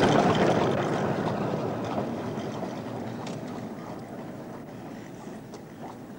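Rumbling of wheels rolling on a road, fading steadily away, with a few faint knocks.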